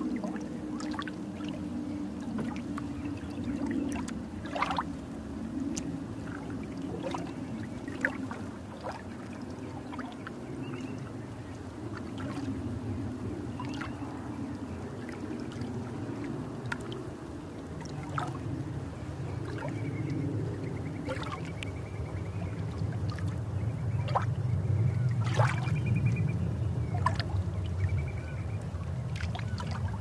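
Underwater ambience picked up by the camera underwater: a steady low rush of water with bubbling and scattered sharp clicks. It grows louder in the last third.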